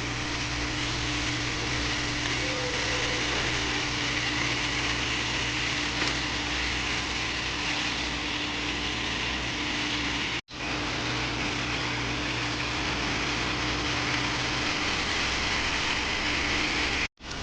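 A steady mechanical hum and hiss with a constant low tone, the kind of sound a running fan or motor makes. It cuts out abruptly twice, about ten seconds in and again near the end.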